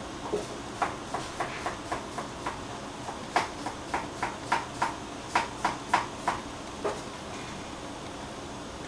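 A covered stainless-steel saucepan on a gas burner giving about twenty irregular clicks and pops while the bean thread inside soaks up the last of its water. The pops stop about seven seconds in, over a steady hiss.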